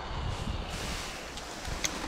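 Wind on the microphone, a low uneven rumble, with a couple of faint short clicks in the second half.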